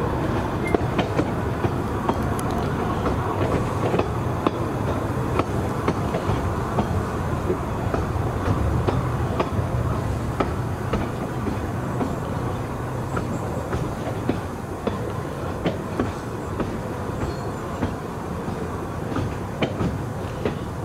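Narrow-gauge train running along the track: a steady rolling rumble from the carriage with frequent clicks of the wheels over the rail joints.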